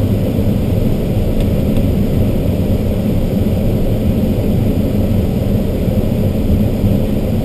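Steady low rush of airflow around an ASK-21 glider's canopy and airframe, heard from inside the cockpit while on aerotow.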